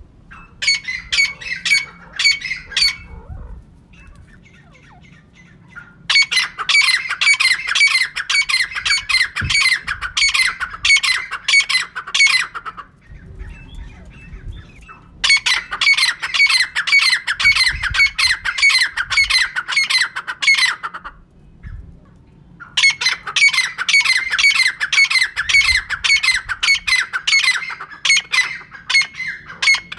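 Female francolin (teetar) calling: harsh, rapidly repeated notes in four long bouts with short pauses between them. This is the call used as a lure to draw birds in for trapping.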